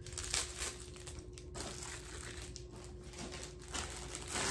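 Packaging crinkling and rustling in irregular bursts as an item is pulled out of it by hand.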